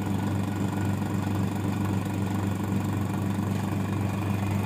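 Electric vacuum pump of a vacuum leak tester running with a steady, even hum, drawing vacuum during a bubble leak test.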